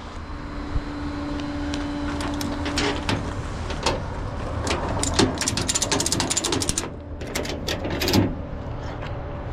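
Ratchet strap being cinched tighter: a run of quick ratchet clicks, densest in the middle, over a steady low hum.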